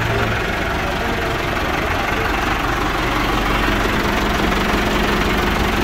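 Massey Ferguson 385 tractor's newly fitted four-cylinder diesel engine idling steadily, run so that its sound can be checked after the engine work.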